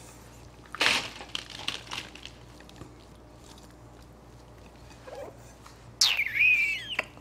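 Oil-coated cherry tomatoes tumbling out of a glass bowl onto a lined dehydrator tray, a short patter of soft rolling and plopping about a second in. Near the end a brief high squeal falls in pitch and wavers, the loudest sound here.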